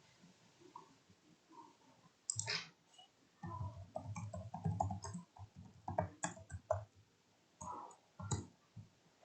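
A few sharp clicks, with soft knocks and rustling between them, close to a computer microphone: someone handling things at a desk. The loudest clicks come about two seconds in, around six seconds in and near the end.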